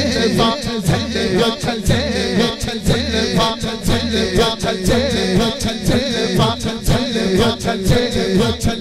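Male voice singing a naat, an Islamic devotional song, into a microphone, in a wavering, ornamented melody. A steady beat of sharp strikes runs under the voice.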